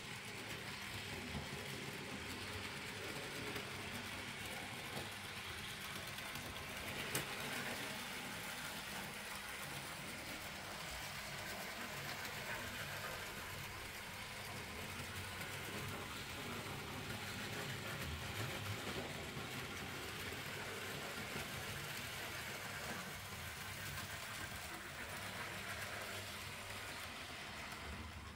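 N gauge model locomotive running on the track, its small electric motor and wheels making a steady sound, with a single click about seven seconds in.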